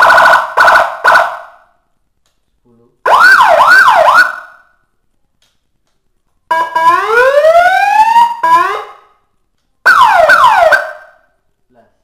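Electronic 12-tone dual-tone siren played through a 10-watt horn loudspeaker, switched through different tones in four short loud bursts: a quick stuttering pulse, a fast up-and-down yelp, a rising wail with two tones sliding together, and another fast falling yelp. Each burst cuts off abruptly with a short echo in the room.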